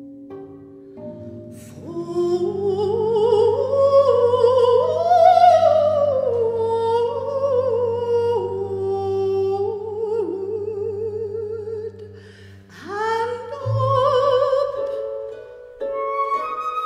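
Operatic female voice, a mezzo-soprano, singing with wide vibrato over a chamber ensemble's held low string notes and plucked notes. The voice comes in about two seconds in with a rising line, holds high notes, pauses, then swoops up into a new phrase near the end.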